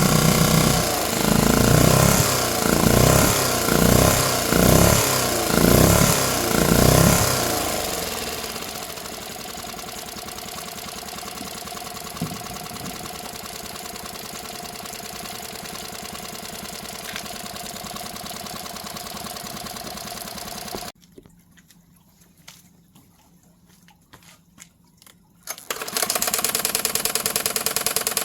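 Tohatsu MFS6DS four-stroke outboard motor revved in about six quick blips, then settling to a steady idle. About 21 seconds in it stops, and after a few seconds of near silence it starts running again.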